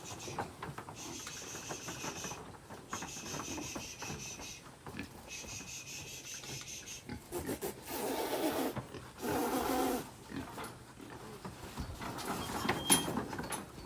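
A pig squealing in two loud, rough calls, about eight and nine and a half seconds in, as it is driven along.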